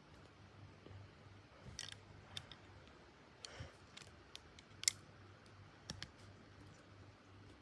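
Faint, irregular clicks and taps from a Nokia N8-00 phone being handled, over a low steady hum; the loudest click comes about five seconds in.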